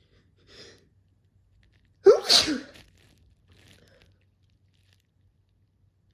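A person sneezes once, loudly and suddenly, about two seconds in, the voice falling in pitch. A short breath comes before it and a faint breath follows about a second later.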